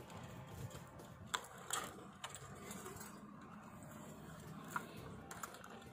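A handful of sharp little clicks and taps from a screwdriver and the plastic parts of a fiber optic dome enclosure being handled while strain-relief screws are tightened, over a faint steady hiss.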